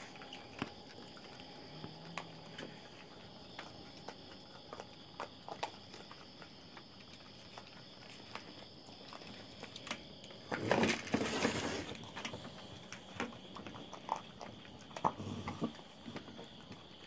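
Raccoons feeding up close: scattered small clicks and crunches of eating. About eleven seconds in comes a louder rough burst lasting about a second and a half, over a steady high tone in the background.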